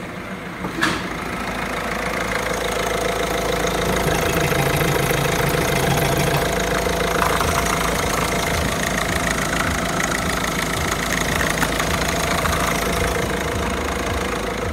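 Peugeot 307's 1.6 HDi DV6TED4 four-cylinder turbodiesel idling steadily, heard close up from the open engine bay. A single short click sounds about a second in.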